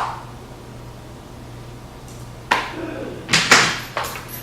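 A few sharp knocks, one right at the start and then a quick cluster of three or four from about two and a half seconds in, over a faint steady hum.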